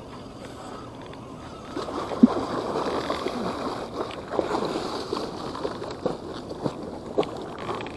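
Water splashing and sloshing: a steady low wash, then from about two seconds in many quick, irregular splashes at the water surface, one sharp one just after two seconds.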